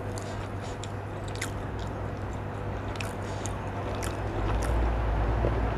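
Close-up chewing of food, with wet mouth smacks and soft clicks scattered irregularly over a steady low hum.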